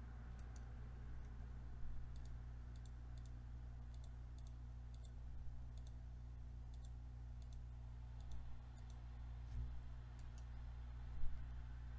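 Faint computer mouse clicks, scattered about one a second and some in quick pairs, over a steady low hum.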